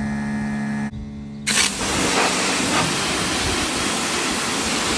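Greenworks Pro 3000 psi electric pressure washer: a steady pitched hum cuts out just under a second in, then about a second and a half in the trigger is pulled and a loud, steady high-pressure water spray starts through a 15-degree nozzle tip.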